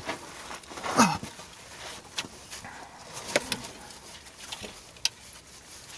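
Scattered light clicks and taps of hand tools working against metal while prying at a stuck crankshaft position sensor. There is a short sound with a falling pitch about a second in.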